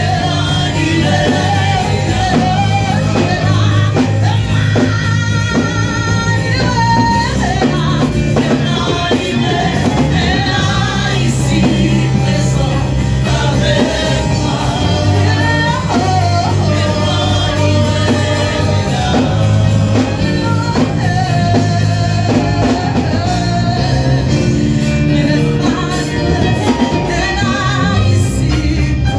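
Gospel praise music: singing over a band with a strong bass line and drums, in a large hall.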